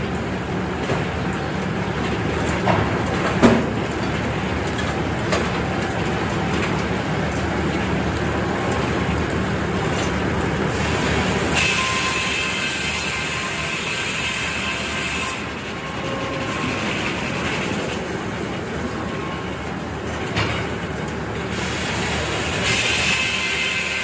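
Circular sawmill head saw and log carriage running steadily, with a sharp knock about three seconds in. Partway through, the blade cuts into a white oak log and a high whine rises over the machinery. The whine eases briefly and picks up again near the end as the cut goes on.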